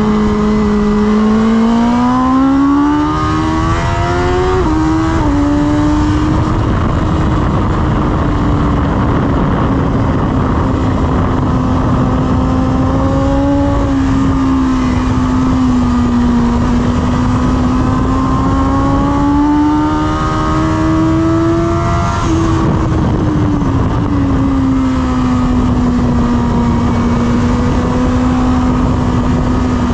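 BMW S1000RR's 999 cc inline-four engine pulling hard on track, its note rising and falling through the bends. The pitch drops sharply twice, about five seconds in and again about 22 seconds in, as it shifts up a gear, with steady wind noise underneath.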